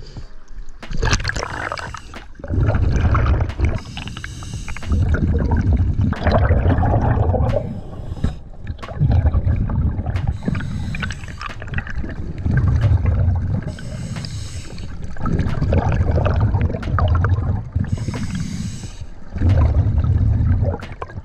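Scuba diver breathing underwater through a regulator: a short hiss of inhaled air, then a long bubbling rumble of exhaled air, repeating about every four to five seconds.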